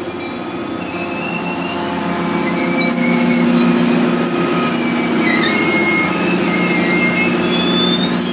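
Coaster commuter train rolling slowly past, its steel wheels squealing in several wavering high tones over the steady low hum of the diesel locomotive. The sound grows louder about two seconds in as the locomotive comes alongside.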